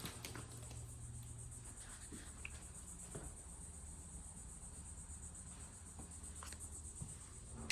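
Steady high-pitched insect chirring, with a few faint clicks and a sharper click near the end.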